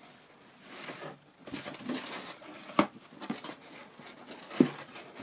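Hands handling a fold-out cardboard playset, pressing the floor flat and fitting a wall panel: soft rustling and scraping of card, with two sharper taps, one near the middle and one near the end.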